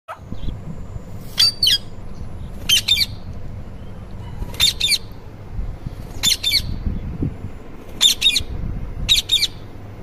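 Indian ringneck parakeet squawking: six short, high-pitched double calls, repeated about every one and a half to two seconds.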